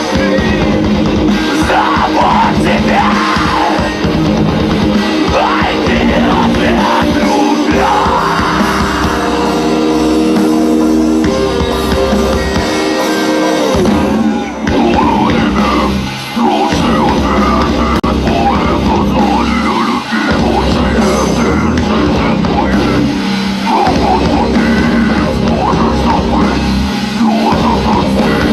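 Live heavy rock band playing: distorted guitars, drum kit and a singer with yelled vocals, loud and dense, with a few brief drops near the middle.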